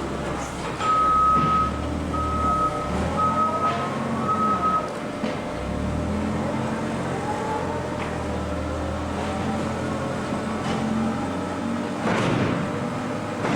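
Industrial baler and its conveyor running with a steady machine hum. About a second in come four high, even beeps like a backup alarm, and a couple of rising whines; the noise swells briefly near the end.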